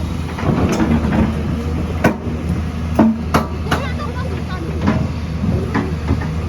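Engine of heavy construction machinery running steadily, with sharp metallic knocks and clanks every second or so.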